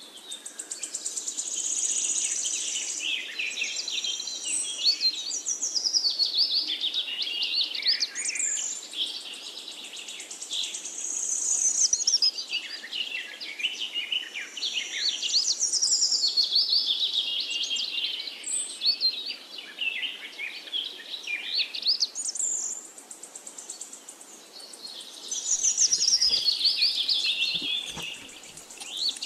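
Birds chirping and singing in repeated high, warbling phrases that come back every four to five seconds, over a faint hiss.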